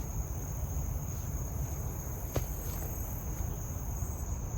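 Steady high-pitched trilling of insects, over a low rumble, with one brief click about two and a half seconds in.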